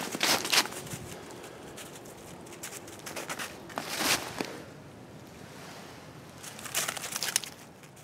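Footsteps crunching in wet snow over leaf litter: three short runs of crackly steps, at the start, about three to four seconds in, and near the end.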